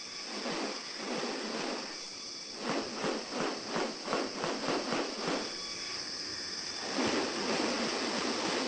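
Rainforest sounds: a steady high-pitched insect drone, over which come rasping sounds, a run of short pulses about four a second in the middle and longer rasps near the end.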